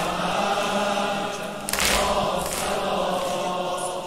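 A large crowd chanting a mourning noha together in unison, many voices held on one line, with a short hissing swish about two seconds in.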